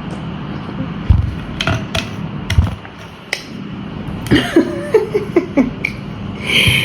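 Several sharp knocks and thumps over a steady low hum, then a few seconds of brief, muffled voice sounds.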